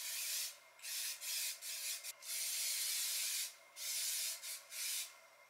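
Aerosol can of Kiwi Protect All waterproofer spraying onto ice skate boots in a series of short hissing bursts, with one longer spray of about a second and a half in the middle.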